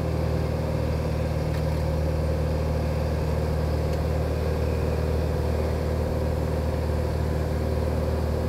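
Cessna 182G Skylane's six-cylinder Continental O-470 engine and propeller running steadily in cruise flight, a constant drone heard inside the cockpit.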